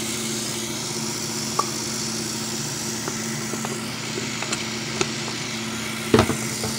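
Bathroom sink faucet running warm water steadily into a basin, splashing over soap suds. A single sharp knock near the end.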